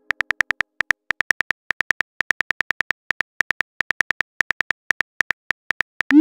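Texting-app keyboard sound effect as a message is typed out: a quick run of short, high clicks, several a second with brief gaps. Right at the end a short rising swoosh plays as the message is sent.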